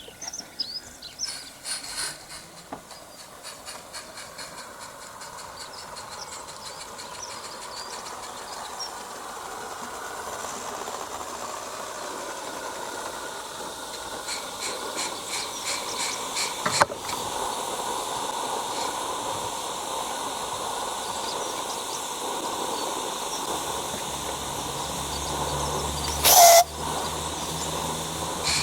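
Small garden-railway steam locomotive hauling a goods train, its steam hiss and exhaust growing steadily louder as it draws nearer. A short, sharp loud sound comes near the end.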